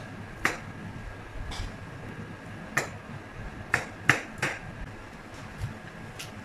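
Kitchen knife chopping baby corn on a plastic cutting board: sharp, irregular taps as the blade hits the board, about eight of them, with three close together around the middle.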